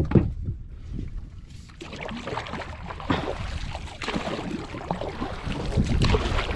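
Wind rumbling on the microphone over moving water, with scattered small knocks.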